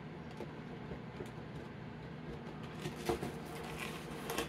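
Cardboard model kit box being opened and handled: scattered light taps and scrapes, with two louder knocks about three seconds in and near the end, over a low steady hum.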